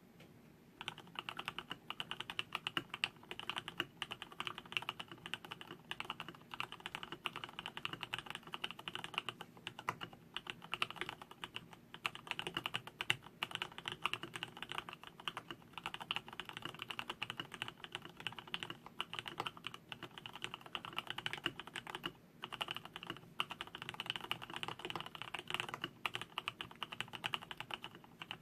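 Fast continuous typing on a custom acrylic mechanical keyboard with an acrylic plate, lubed Cherry MX Black linear switches and PBT keycaps: dense rapid keystrokes, pausing briefly a couple of times.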